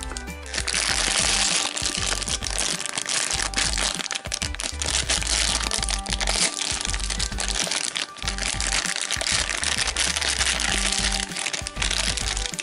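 Plastic foil blind-bag packet crinkling and crackling loudly as it is torn open and handled, over background music.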